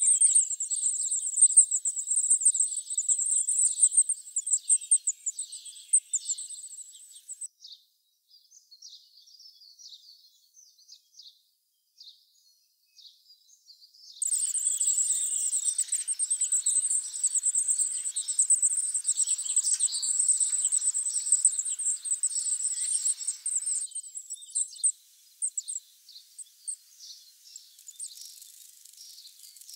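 Goldcrest nestlings begging for food: a dense chorus of very high, thin cheeping calls. It breaks off about seven seconds in, leaving only scattered calls, comes back strongly about seven seconds later, then thins to scattered calls near the end.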